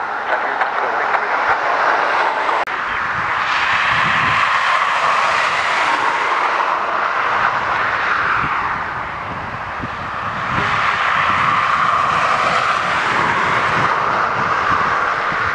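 Jet engines of a wide-body twin-jet airliner running as it turns on the runway, a steady loud rush that swells twice.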